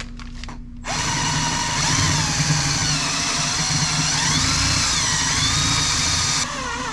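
Power drill with a 1/4 inch bit boring out a 1/8 inch pilot hole. The drill starts suddenly about a second in and runs with its motor pitch wavering up and down as the speed and load change.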